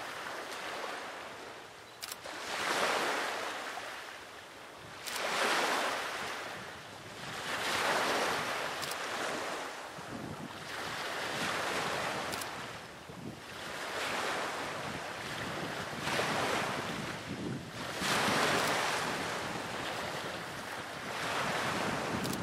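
Sea waves washing in, each wave swelling and falling away every two to three seconds.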